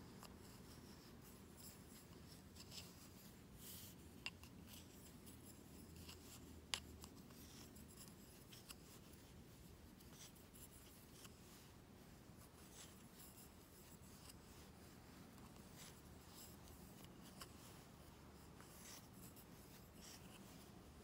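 Near silence with faint rubbing of thick wool yarn on wooden knitting needles as stitches are worked, and a couple of soft needle clicks, the clearest about four and six and a half seconds in.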